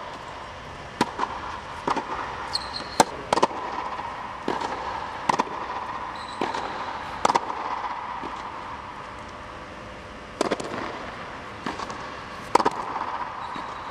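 Tennis balls being struck by rackets and bouncing on an indoor court: sharp echoing pops about once a second, with a pause of about three seconds midway, over a steady background hum.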